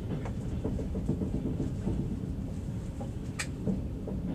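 Passenger train carriage rolling along the track, a steady low rumble heard from inside the car. A short sharp click cuts through about three and a half seconds in.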